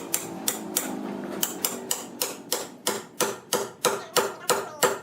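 A quick run of sharp knocks or taps, about three a second, getting louder and more regular after a second or so.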